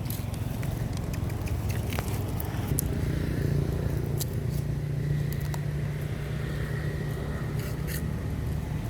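A small engine running steadily, growing louder about three seconds in, with scattered sharp clicks.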